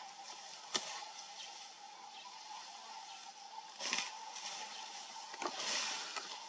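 Young African elephant feeding in bush: leaves rustling and twigs snapping as it pulls at vegetation. There is a sharp snap about a second in, and louder rustling bursts around four seconds in and again near the end. A steady faint hum sits underneath.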